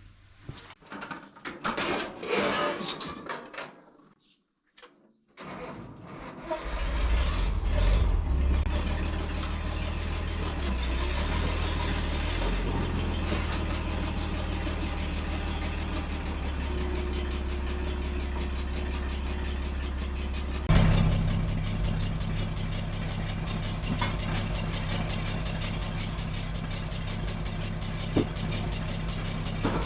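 A few knocks and handling noises, then a tractor engine starts about six seconds in and runs steadily. About twenty seconds in, its sound changes abruptly to a steadier, slightly higher hum.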